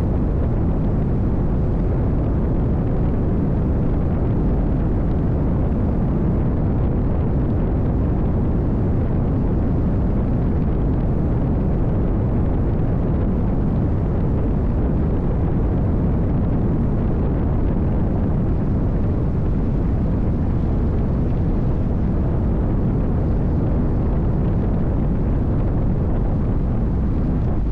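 Onboard noise of a NITRA 22 V8 powerboat running at speed: engine, wind on the microphone and rushing water blend into one steady, low-heavy roar with no distinct knocks or changes.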